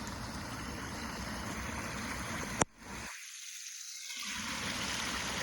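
Water rushing steadily down a rain-swollen drainage ditch. There is a sharp click about halfway through, then a short dip before the rushing comes back slightly louder.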